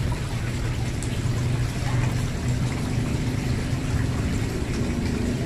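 Water from a frog-shaped fountain spout pouring and splashing steadily into a koi pond, with a steady low rumble underneath.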